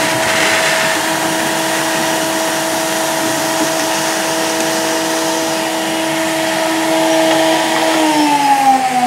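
Vacuum cleaner running with a steady whine, sucking loose model railway ballast through a hose and a 3D-printed ballast-vacuum nozzle drawn along the track edge. Near the end its whine falls in pitch as the motor winds down.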